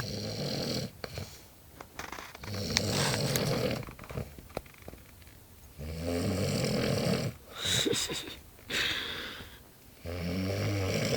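A man snoring in his sleep: long, low snores of about a second or more, coming roughly every three seconds, with quieter breathing between.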